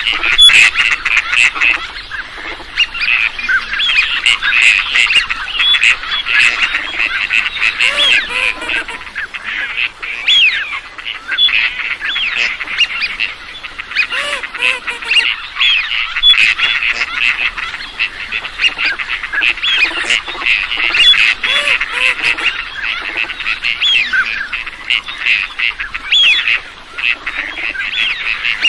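A large flock of wild ducks and geese calling, many short calls overlapping without a break.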